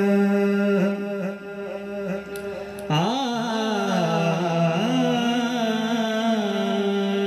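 A man singing a devotional naat in Urdu/Punjabi style. He holds one long steady note that weakens, then about three seconds in starts a new phrase with wavering, ornamented pitch glides.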